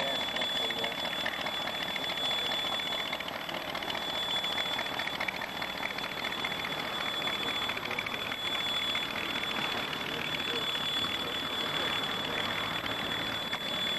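A constant high-pitched whine over steady hiss, the tape noise of a worn fourth-generation VHS camcorder copy.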